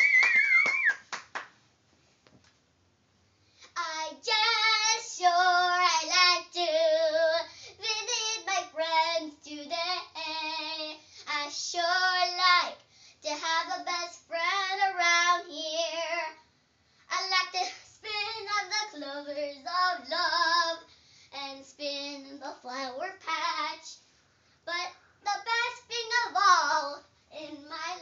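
A brief whistle and a few claps in the first second, then a short pause, then a young girl singing unaccompanied, improvising a melody in short phrases.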